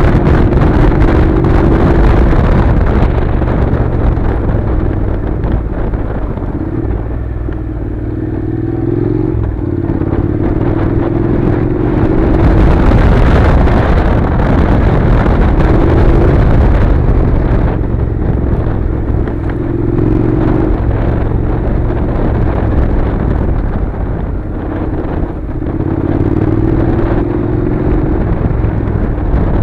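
Honda NC700's parallel-twin engine running under way on a gravel track, its note rising and falling again and again as the throttle is opened and eased, over a steady rush of wind and road noise.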